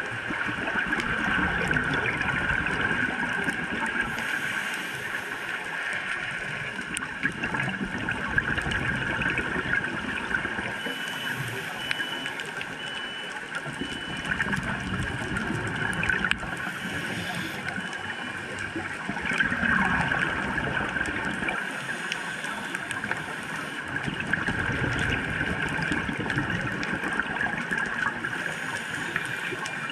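Underwater sound of a scuba diver breathing through a regulator, with bubbles gurgling, in a slow cycle of about one breath every six seconds. A constant crackle of fine clicks runs underneath.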